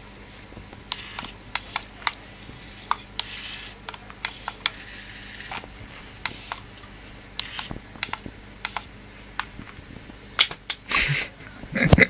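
Irregular light clicks and taps, one or two at a time, with a few louder knocks and rustling near the end.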